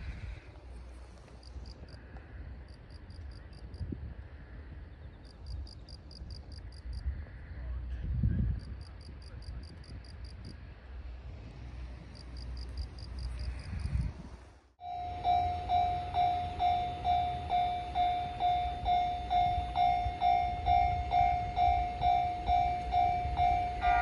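Insects chirping in short, evenly grouped pulses over light wind noise. About halfway through, a level-crossing warning bell starts ringing, a steady electronic ding at about two and a half strikes a second, the signal that a train is approaching.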